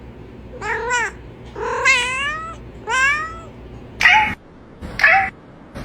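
A domestic cat meowing five times. The first three meows are longer and rise then fall in pitch; the last two are shorter.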